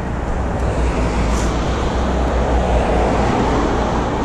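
Wind rushing over the microphone, with a low road rumble from an electric scooter riding along a street.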